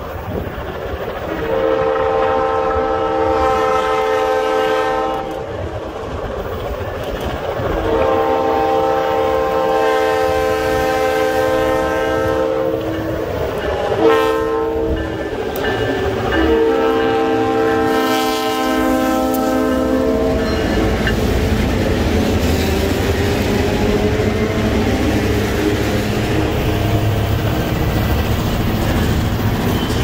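EMD diesel locomotive's air horn sounding the long, long, short, long grade-crossing signal as the train approaches; the horn's pitch drops as the locomotive passes close by. Afterwards the diesel engine rumbles and covered hopper cars roll past with steady wheel-on-rail noise.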